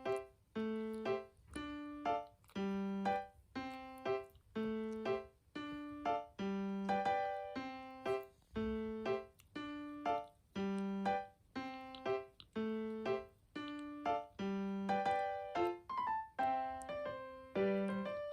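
Background music: a simple, gently paced melody played on piano or electric piano, one note or two-note chord at a time, each note fading before the next.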